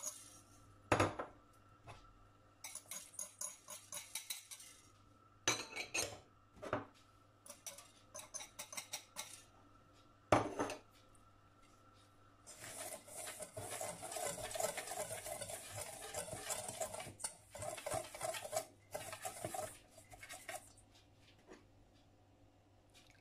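Wire whisk working dry ingredients in a stainless steel bowl, its wires scraping and clinking against the metal. The first half holds a few sharp knocks with short bursts of quick rattling between them; from about halfway the whisk stirs continuously, then stops near the end.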